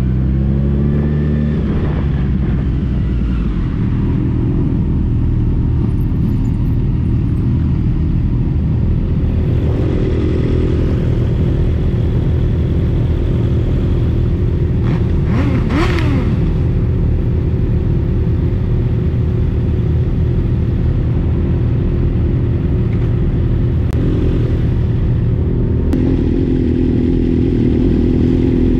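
Motorcycle engine running under way with road and wind noise, pulling up in pitch and then dropping back in the first couple of seconds, as on an upshift. About halfway through, a short tone rises and falls.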